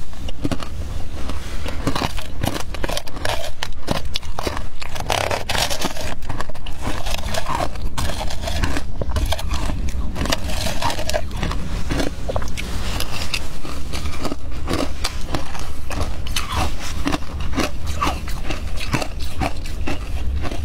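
Close-up crunching of shaved ice dusted with milk powder, bitten and chewed in irregular crackling crunches, mixed with a metal spoon scraping the plastic bowl, over a steady low rumble.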